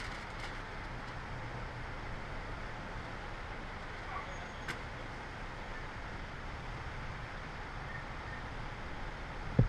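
Steady running noise of idling vehicles with a low hum, a couple of faint clicks, and a sharp thump just before the end.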